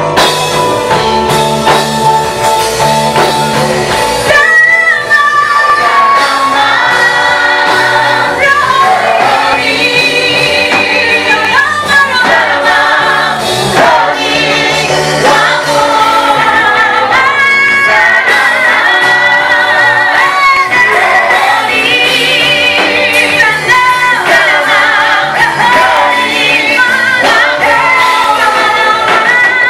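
A gospel praise team singing a worship song together, with vibrato in the voices, over instrumental backing with a bass line.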